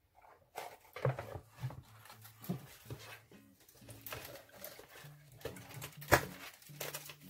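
Paper card and a thin wire string of fairy lights being handled: irregular rustling and light taps, with a sharper knock about six seconds in, as the lights are fed through a hole in a paper-covered chimney model.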